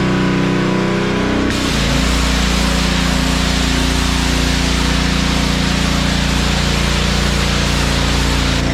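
Honda gas pressure washer's engine running with a steady hum; about a second and a half in the high-pressure spray starts with a loud hiss and the engine note shifts as it takes the load, and the spray cuts off near the end.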